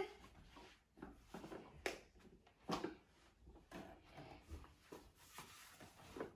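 Faint, scattered knocks and rustles of a child's Radio Flyer tricycle being handled, a couple of them slightly sharper, about two and three seconds in.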